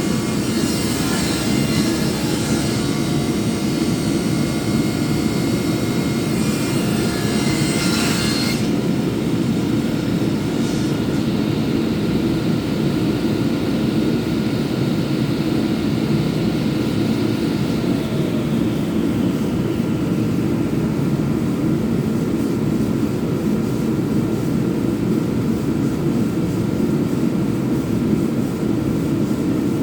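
Power sander running with a loud, steady low drone. A brighter sanding hiss over it cuts off about eight seconds in, while the drone keeps going.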